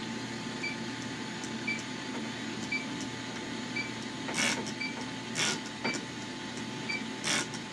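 A hand trigger spray bottle squirting bubble leak-detection solution onto an evaporator coil to check it for refrigerant leaks, a few short hissing sprays in the second half. Under it run the refrigeration unit's steady hum and a faint tick about once a second from an electronic leak detector.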